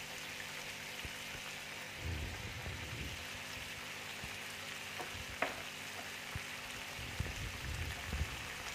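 Hot oil sizzling steadily in a frying pan as a spice masala with tomato sauce, chilli sauce and chilli flakes fries in it, with one sharp click about halfway through.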